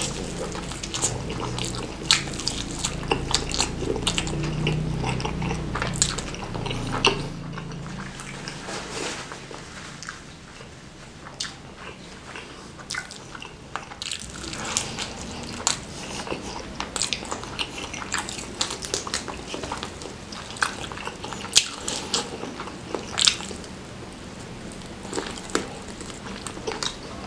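Close-miked biting and chewing of crispy fried chicken coated in chili sambal: a dense run of crackling crunches and mouth clicks, louder for the first several seconds.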